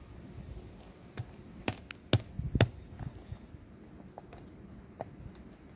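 Large knife chopping into a spiky durian husk. Three sharp knocks about half a second apart near the middle, with a few fainter taps and clicks around them.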